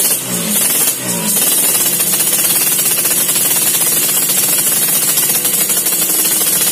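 Yamaha RX-King's single-cylinder two-stroke engine revved through its exhaust: two quick throttle blips with the revs falling away after each, then held at steady high revs from about a second and a half in. The exhaust note is crisp ('garing').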